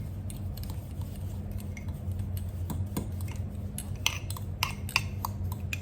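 A spoon clicking and clinking against a bowl while working a seasoning paste of dried herbs and olive oil: scattered light clicks that come faster in the last two seconds, over a steady low hum.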